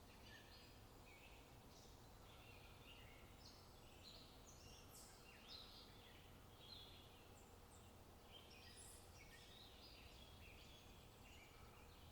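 Faint chirping of several small birds: many short calls overlapping without pause, over a low steady hum.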